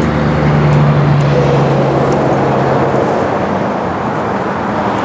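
Motor vehicle sound: a steady low engine hum that stops about three seconds in, over a steady rushing road noise.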